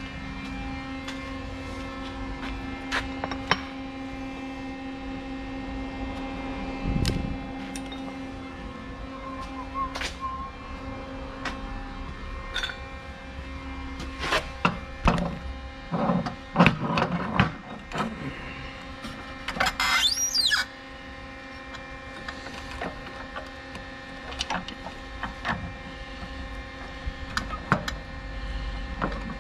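Metal handling as a steel bolt is fetched and clamped into a metal-cutting chop saw's vise: scattered clicks and clanks, a cluster of knocks about halfway through and a short rising squeak just after, over a steady hum.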